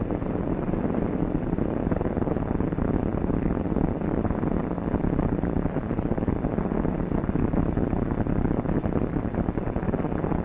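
Steady drone of a C-47's twin radial engines at low taxiing power, with a rushing hiss from the old film soundtrack.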